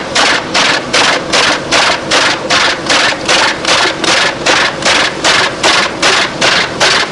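Stationary industrial wood chipper cutting up a log fed in on a chain infeed conveyor: a loud, even chopping about three times a second over the steady run of the machine.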